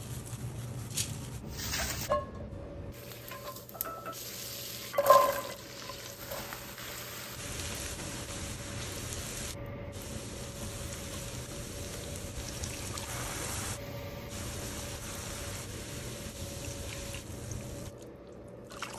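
Cooking sounds from a pan on the stove, edited together in short cuts, over a steady hiss. There is one loud knock about five seconds in.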